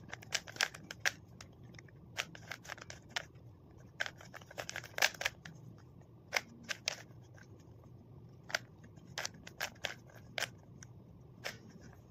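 3×3 Rubik's cube being turned by hand: sharp plastic clicks as the layers are twisted, coming in quick irregular runs with short pauses between them.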